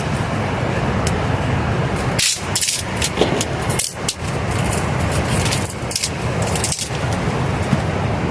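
Steady rushing of river rapids, an even, loud water noise, with a few short rustling or scraping sounds over it.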